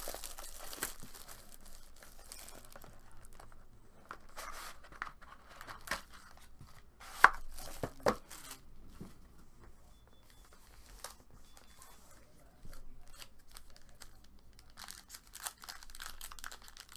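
Plastic wrapping on a sealed trading-card box and its packs tearing and crinkling in fits and starts, with a sharp snap a little after seven seconds in and another about a second later.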